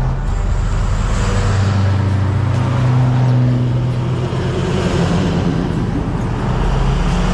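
Pickup truck engine running while driving: a steady low drone that shifts in pitch a few times.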